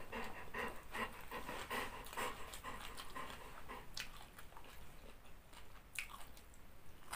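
Close-up chewing of a mouthful of crunchy papaya salad and noodles: soft crunching about twice a second, thinning out after a few seconds, with a couple of sharp clicks.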